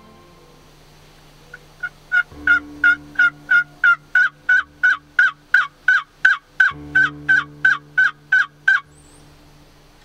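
A long series of turkey yelps, about three a second, each note breaking from high to low. The run starts softly about a second and a half in, quickly grows louder, and stops near the end.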